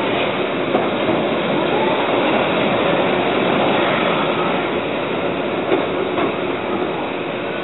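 Keihan Ishiyama Sakamoto Line train heard from inside the car, a steady running noise of wheels on rail as it eases into a station, with a couple of brief clicks over the rail joints and points.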